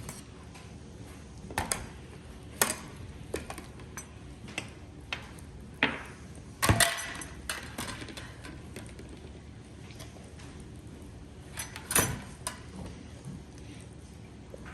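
Hands squeezing and stretching slime: irregular sticky clicks and small pops, the loudest about seven seconds in and another near twelve seconds.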